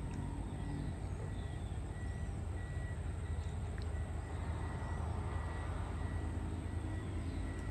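Steady outdoor ambience: a low rumble of distant traffic under an even hiss, with a faint high tone pulsing on and off and a few faint bird chirps.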